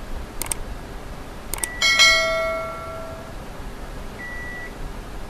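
Subscribe-button sound effect: two quick mouse clicks, then a bell chime that rings out and fades over about a second. A short faint beep comes about four seconds in.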